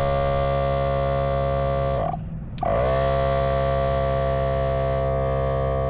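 Electric air compressor running steadily while inflating a Onewheel tire to seat its bead. About two seconds in it stops, its whine sliding down, and half a second later it starts again, sliding back up to speed.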